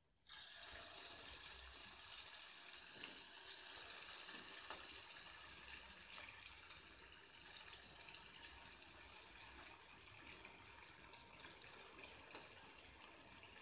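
Vegetable Manchurian balls deep-frying in hot oil: a dense sizzle with fine crackles, starting suddenly as the first ball drops in.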